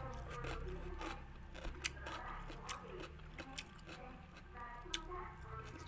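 Eating sounds: scattered sharp clicks and taps of chopsticks and mouth as the braised pig intestines are picked up and eaten, over a low steady hum.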